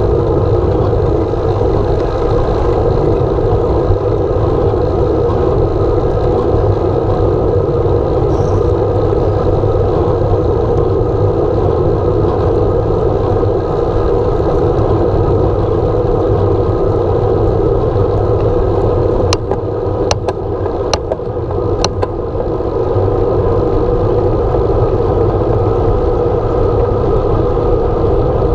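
Steady wind rush and tyre noise of a road bicycle riding at speed, picked up by a handlebar-mounted camera. A handful of sharp clicks come about two-thirds of the way through, while the noise briefly drops.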